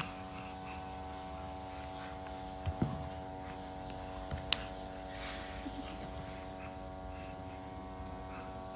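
A steady electric hum made of several fixed tones, with a few soft knocks about three seconds in and one sharp click a little later.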